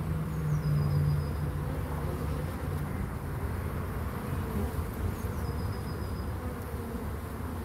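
Honeybees buzzing at a wooden hive entrance as foragers fly in and out: a steady hum, strongest in the first second and a half.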